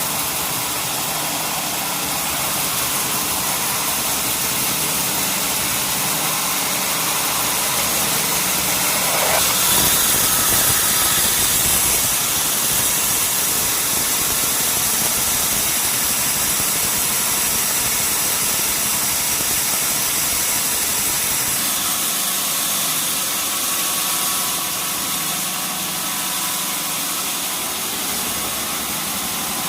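Sawmill machinery running steadily with an engine-like drone. About nine seconds in there is a brief rising whine, and it grows louder for a couple of seconds.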